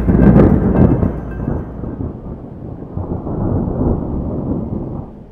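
Thunder: a loud crack, loudest in the first second, trailing into a long rolling rumble that swells once more and then fades away near the end.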